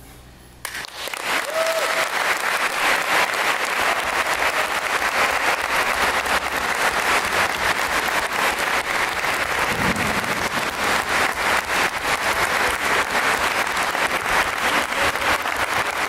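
Audience applause breaking out suddenly just under a second in, then steady, dense clapping.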